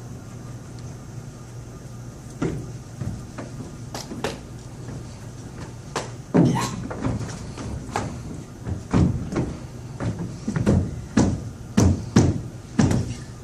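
A series of dull thumps and knocks: a few scattered strikes at first, then about two a second from about six seconds in.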